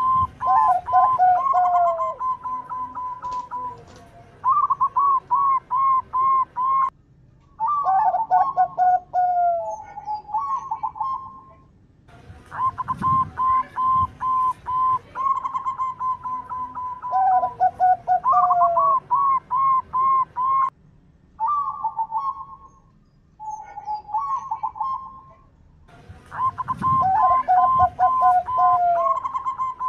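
Zebra dove (perkutut) singing its cooing song: a quick run of short pulsed coos on one pitch, then lower gliding notes. The phrases repeat in bouts that start about every 13 to 14 seconds.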